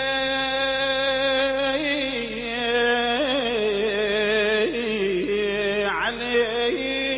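A solo voice singing a long, ornamented, wordless held line of an Arabic mourning elegy, the notes wavering and sliding, with a short break about six seconds in.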